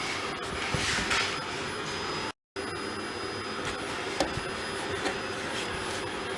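Steady whirring air noise from a running machine, with a louder hiss about a second in and a brief drop to silence a little after two seconds.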